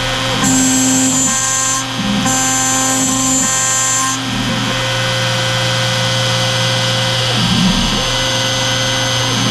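CNC router spindle running as a small end mill cuts a pocket in a Delrin (acetal) plate. A high whine switches on and off in roughly one-second stretches for the first four seconds as the machine moves back and forth, then the cutting goes on steadily.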